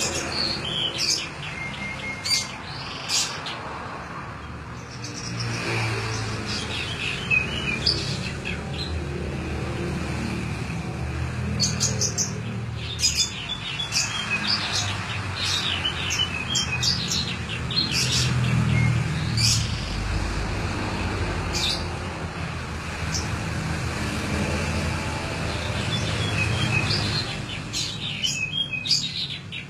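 Canary singing a run of sharp chirps and rapid trills, its song imitating the calls of a starling (jalak), over a steady low hum.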